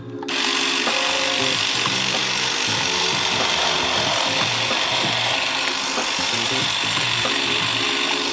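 Ryobi 18V ONE+ cordless pole hedge trimmer running, its reciprocating blades cutting through hedge branches. It starts up just after the beginning and runs steadily.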